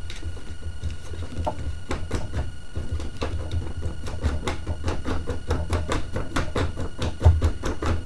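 Homemade pinwheel wind generator, its child's-toy rotor on a direct-drive magnet-and-coil generator with no gearbox, spinning fast: a rapid rhythmic ticking over a low rumble, the ticks quickening as the rotor speeds up and stopping near the end.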